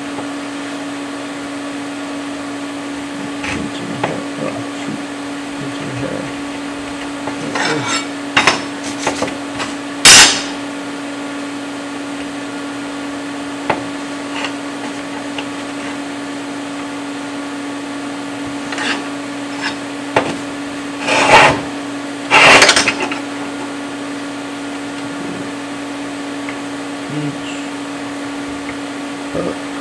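Steady hum from a TIG welding setup, with scattered sharp metallic knocks and clatter from mild steel pieces being handled on the welding table. The loudest are a burst about ten seconds in and two more a little past twenty seconds.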